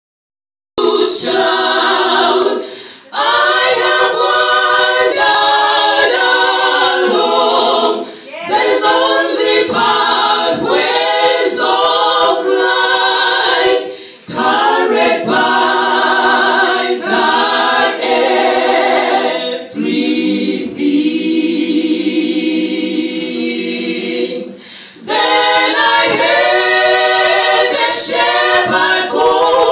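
A women's a cappella group singing a gospel hymn in close harmony without instruments, amplified through microphones. Partway through, the voices settle into a stretch of long held notes before the melody picks up again.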